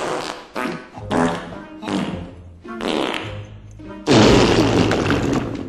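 A run of about five fart sounds in quick succession, the last the longest and loudest, starting about four seconds in and lasting over a second, with music underneath.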